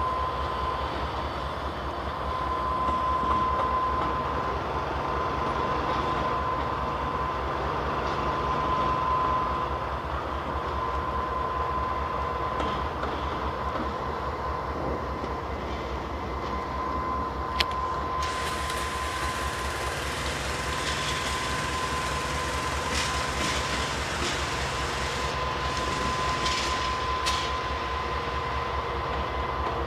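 GE Dash 9 diesel-electric locomotives running past under power, with a steady low engine throb and a steady high tone. Just past halfway a sharp clank is heard, and from then on hissing wheel-on-rail noise and intermittent clanks join in.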